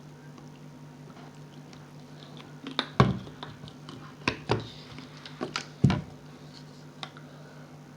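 Water-soaked thinking putty being squished and pulled apart by hand: a quick run of about eight sticky squelches and slaps after a quiet start.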